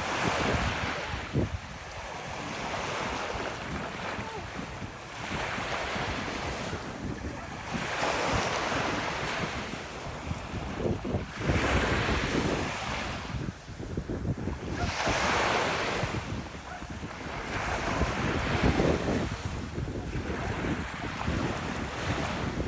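Ocean waves breaking and washing up a beach, the surf swelling and fading every two to three seconds, with wind buffeting the microphone.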